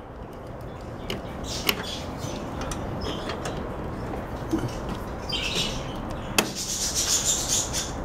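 Wires and insulated spade connectors rubbing and rustling as they are worked loose by hand from a microwave's control-panel switches, with a couple of sharp clicks, the loudest about six seconds in.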